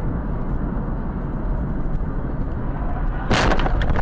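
Steady road and engine rumble heard from inside a car driving on a wet road, then about three and a half seconds in a sudden loud crash as the car is struck and its windshield cracks.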